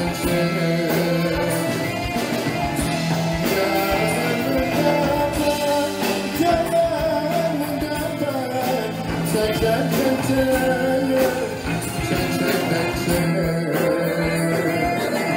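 Live band playing a Malay pop-traditional song, a drum kit keeping a steady beat, with a man singing over it.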